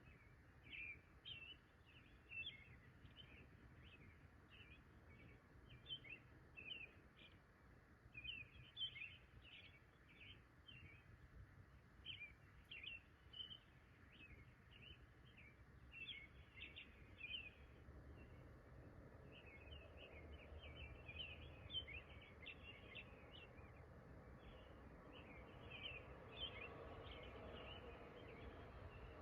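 Faint outdoor ambience of many short, high, irregular chirps over a low steady rumble, with a faint hum rising in the last ten seconds or so.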